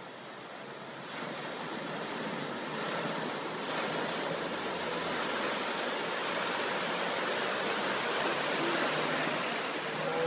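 Water rushing and splashing as a Renault Duster SUV ploughs through a river ford, pushing a bow wave. A steady, dense wash that grows louder about a second in and holds.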